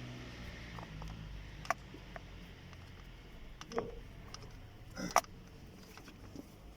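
A few scattered sharp clicks and taps of a screwdriver and plastic trim as screws are taken out of a Dacia Duster's lower steering column cover, the loudest pair about five seconds in. A low hum fades out about a second in.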